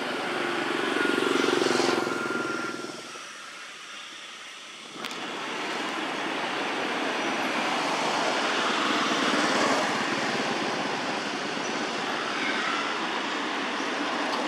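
Steady rushing outdoor background noise with no clear single source. It dips quieter about three seconds in and comes back abruptly about two seconds later.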